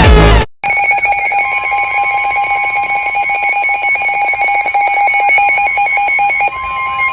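Emergency Alert System alert tones: a steady electronic alarm tone, joined by a second, slightly higher tone, the lower one dropping out near the end.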